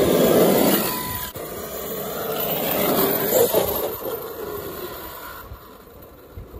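Arrma Outcast 8S radio-controlled stunt truck driving on wet asphalt, its electric motor whining up and down with the throttle over the hiss of its tyres. It is loudest as it passes close about a second in, surges again around three seconds, then fades as it drives away.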